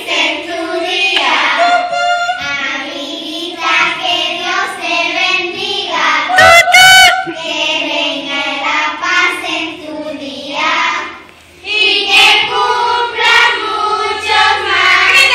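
A group of young girls singing a birthday song together, with a loud high squeal about six and a half seconds in and a short break before the singing picks up again.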